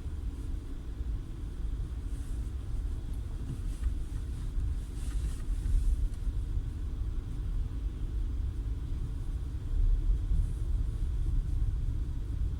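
A Peugeot 408 on the move: a steady low rumble of the road and running gear, with no distinct knock standing out.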